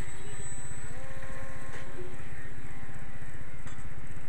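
Steady rumble of wind buffeting the microphone. Over it, the faint whine of an RC plane's 1100 kV brushless electric motor turning a two-blade 8x6 propeller rises in pitch about a second in and then holds steady as the throttle comes up.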